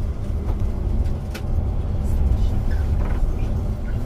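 Steady low rumble of engine and road noise inside a moving tour coach, with a few faint clicks.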